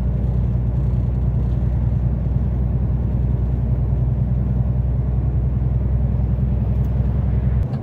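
Loaded semi-truck cruising on the motorway, heard from inside the cab: a steady low engine drone with road noise. Near the end the deepest part of the rumble drops away abruptly.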